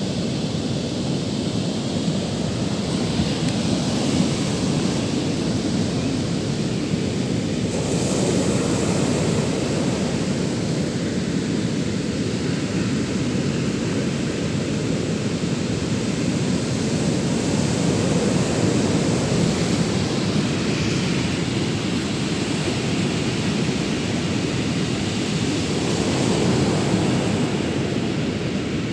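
Heavy ocean surf breaking on a beach: a steady rushing noise that swells a little louder now and then, with wind rumbling on the microphone.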